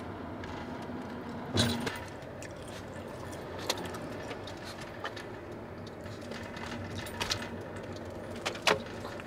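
Steady road and engine noise inside a moving car's cabin, with a few short clicks, the loudest about one and a half seconds in and another near the end.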